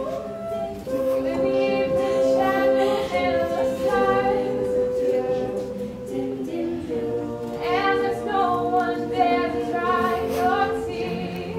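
Vocal music: several voices singing in harmony over long held chords.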